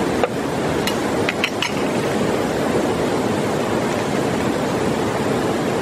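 Steady rush of a shallow, rocky river flowing over stones. Within the first two seconds there are a few light clicks as small metal cookware is handled.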